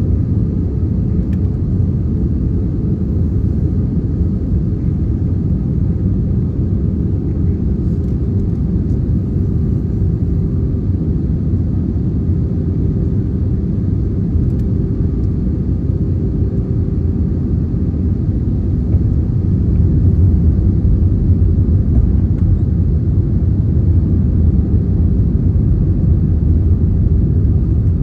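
Airbus A320neo cabin noise on approach: the steady rumble of the Pratt & Whitney geared turbofans and airflow over the fuselage. It grows a little louder about two-thirds of the way through as the landing gear comes down and adds drag noise.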